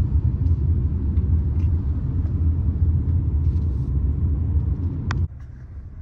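Low, steady road and engine rumble inside a moving car's cabin. About five seconds in there is a short click and the rumble cuts off abruptly, leaving a much quieter background.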